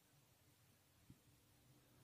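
Near silence: room tone, with one faint click about a second in.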